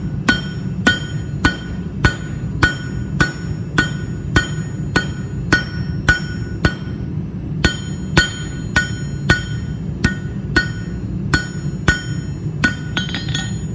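Hand hammer striking a red-hot mild steel square bar on an anvil, drawing out a square taper: steady blows about two a second, each with a short metallic ring. A few quicker, lighter clinks come near the end.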